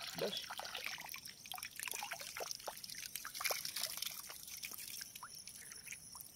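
Water trickling and dribbling, with many small irregular splashes and drips.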